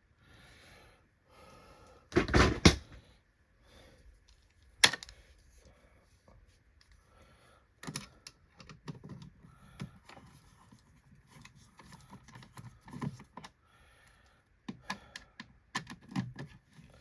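Hard plastic parts of a Hoover Windtunnel Supreme upright vacuum being handled while it is cleaned: a run of clicks, taps and knocks, with a loud clattering bump about two seconds in and a single sharp click a few seconds later.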